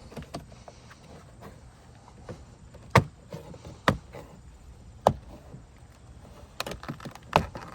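Plastic trim clips of a BMW F10's interior door panel popping out under a pry tool: about five sharp snaps, spread over several seconds, with quieter handling between them.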